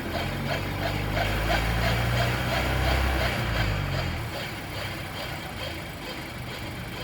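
Seat Leon FR (2021) under way, its low drivetrain hum swelling and then dropping off about four seconds in, with a repeating noise at about four pulses a second above it: the transmission noise the owner is reporting on a car with only 4000 km.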